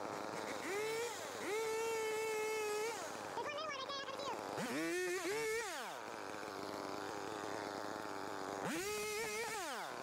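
Small two-stroke power-tool engine revving in several bursts: the pitch rises, holds steady for over a second or wavers, then drops back, with a last rev-up and fall near the end.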